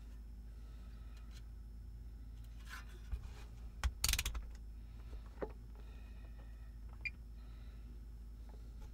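A few sharp small clicks and a brief clattery scrape about four seconds in, over a steady low hum.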